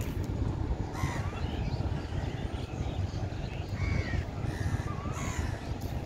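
Birds calling, several short harsh calls, over a steady low rumble.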